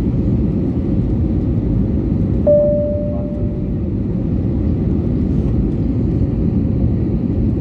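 Jet airliner cabin noise on the approach to landing: a steady, loud, deep rumble of engines and airflow. About a third of the way in, a single clear tone sounds once and fades over about a second.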